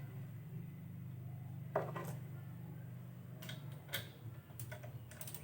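Scattered metallic clicks and clinks of hand tools on engine parts as piston cooling jet bolts are fitted and tightened in an engine block, over a steady low hum. The clicks come in small clusters, about two seconds in, at four seconds, and again near the end.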